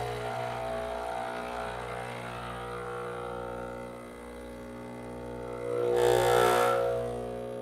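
Breville Barista Express espresso machine's vibratory pump humming steadily as it pushes water through a puck ground too fine, so the shot is choking. About six seconds in, a louder hiss with a wavering whine swells for about a second and dies back.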